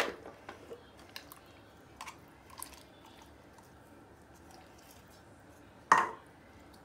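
Small sticky squelches and light plastic clicks as a toy slime maker's cap is handled and stringy, too-sticky slime is pulled out, then one sharp knock about six seconds in.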